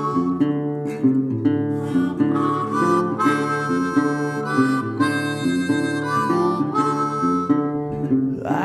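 Background music: a harmonica playing a melody over acoustic guitar.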